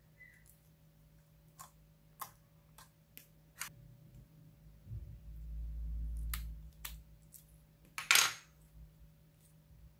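Hands handling slime over a glass baking dish full of clear slime and small beads: scattered light clicks and taps. About five seconds in comes a low dull thud-like rumble, and about eight seconds in a louder, brief, noisy sound.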